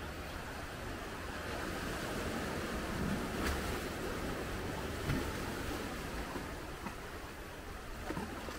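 Small waves washing over a flat rock shelf at the water's edge, with a low rumble of wind on the microphone.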